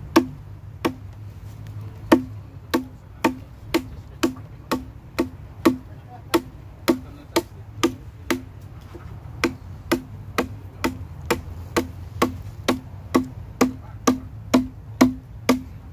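Hand adze chopping into a block of breadfruit wood: a steady run of sharp wooden knocks, about two strokes a second, each with a short hollow ring, with one brief pause about a second in.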